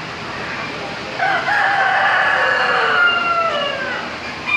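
A rooster crowing once: one long crow of about three seconds that falls in pitch at the end.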